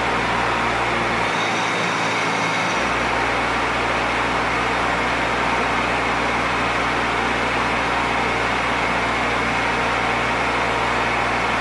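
Bobcat 418 mini excavator's small diesel engine running steadily, a constant mechanical drone with a low hum.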